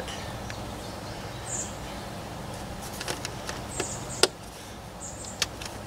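Light clicks and knocks of parts being handled in a car's engine bay, coming in a loose run in the second half, with one sharper click a little over four seconds in, over a steady low outdoor background.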